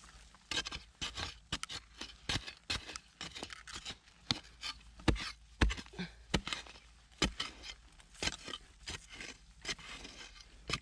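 A digging tool jabbing and scraping into dry, gravelly soil at a burrow's mouth: an irregular run of sharp knocks and scrapes, the loudest two a little past halfway.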